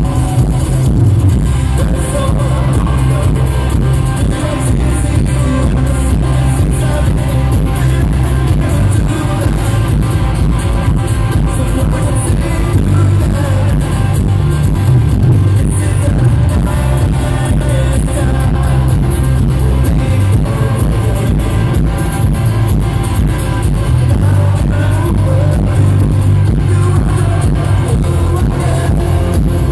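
Rock band playing a song live, guitar-driven, loud and steady, heard from within the audience.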